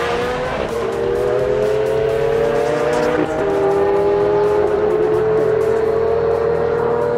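Ferrari supercar engine accelerating hard at full throttle. Its pitch climbs, drops at two quick upshifts about a second and three seconds in, then climbs slowly again in the higher gear.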